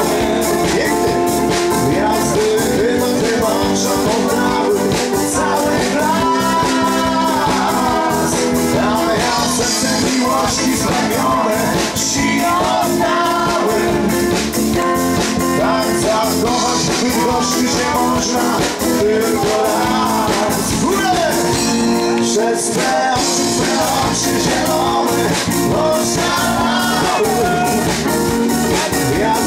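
Live band playing an upbeat Polish pop-rock song on a stage PA, with a steady drum-kit beat, electric guitar and keyboards, and a lead singer's voice over them.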